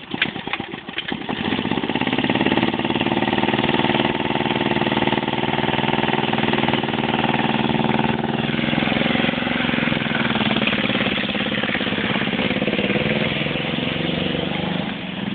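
Lifted golf cart's small engine starting about a second in and then running hard under load through mud, its pitch shifting about halfway through.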